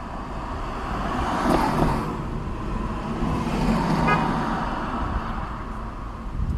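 Road traffic: cars passing by, the noise swelling and easing off, with an engine hum in the middle.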